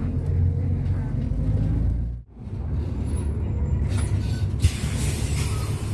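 Steady low running rumble inside a moving public-transport vehicle. It drops out abruptly for a moment about two seconds in, then resumes. Near the end comes a hiss of released compressed air.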